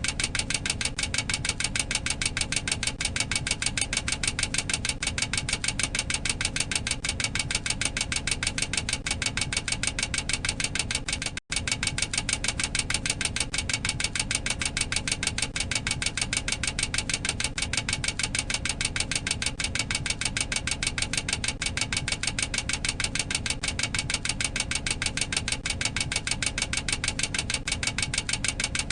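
Boeing 737-800 cockpit overspeed warning clacker: a rapid, even clacking repeated many times a second, warning that the airplane has exceeded its maximum operating speed. It breaks off for an instant about eleven seconds in, then carries on unchanged.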